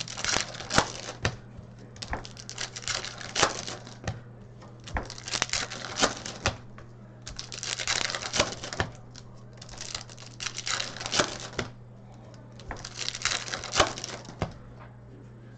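Hockey trading card packs being opened and the cards handled by hand: bursts of wrapper crinkling and quick clicking as cards are flicked through, coming in clusters every second or two, over a low steady hum.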